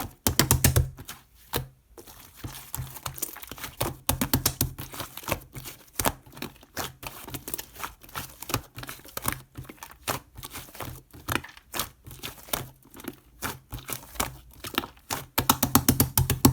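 Crinkly wrapping material being crumpled and handled, a dense run of irregular crackles, loudest in clusters near the start and near the end.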